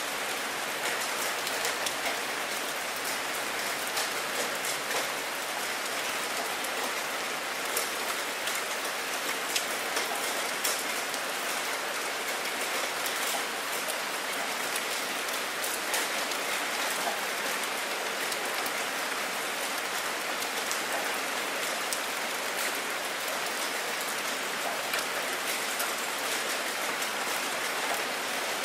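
Steady rain falling on open water: a dense, even hiss speckled with the ticks of individual drops, a few of them louder.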